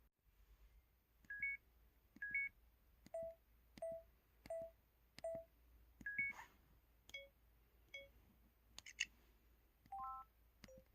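MS500 mobile phone's keypad button sounds, one after another: about a dozen short electronic beeps, each with a click, at different pitches. Some are single notes, some step up over two or three notes, and a noisier chirp comes about two-thirds of the way through.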